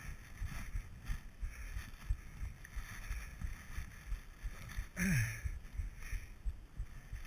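Skis running through deep powder snow: a steady low rumble with a soft swish at each turn, and a louder swoosh about five seconds in.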